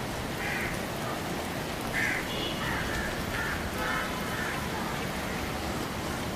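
Steady rain, with a string of short, harsh animal calls repeating through the middle.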